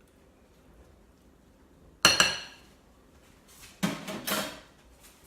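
Kitchen utensils and dishes clinking: a sharp ringing clink about two seconds in, then a short clatter of a few hits about a second and a half later.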